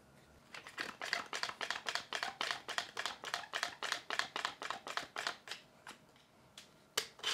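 Quick-Grip one-handed bar clamp being pumped shut: a fast, even run of short clicks, about five a second, as the trigger handle is squeezed and the bar ratchets forward. The clicks slow and stop after about five seconds, and one or two louder clicks come near the end.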